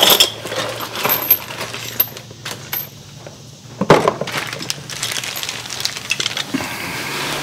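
Light metallic clinks and rattles of small parts being handled: the hardware of a sway bar end link bushing kit (bushings, rod, nut) and its packaging. Louder clatters come at the start and about four seconds in.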